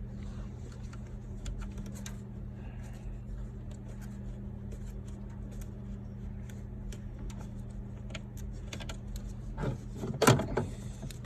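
Small clicks and knocks of hands and tools working at a van's accelerator pedal under the dashboard, with a louder clatter about ten seconds in, over a steady low hum.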